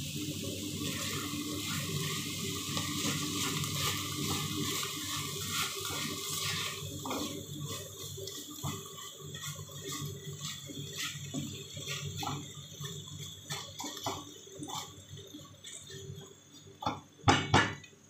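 Minced pork, corn and onion sizzling in a frying pan. The hiss drops off after about six seconds, giving way to a spatula stirring and scraping the pan with scattered light clicks and a few louder knocks near the end.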